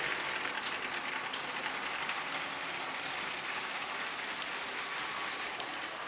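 Motorised Lego train running on plastic track: a steady whir with a few faint ticks.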